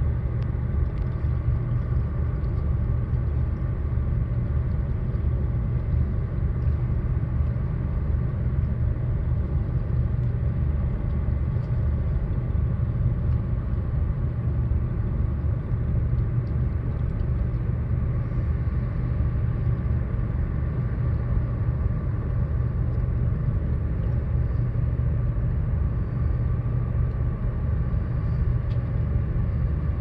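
Steady low engine rumble with a constant hum, unchanging throughout.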